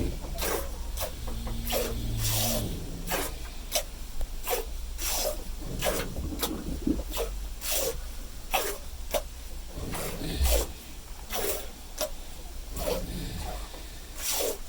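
Hand milking a cow: streams of milk squirting into a pail in a steady rhythm, about two to three hissing squirts a second.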